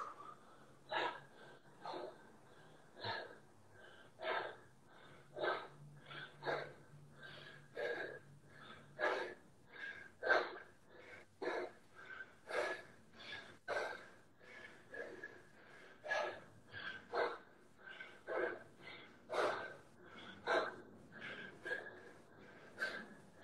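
A man breathing hard from exertion during a conditioning workout: short, regular, forceful breaths, more than one a second.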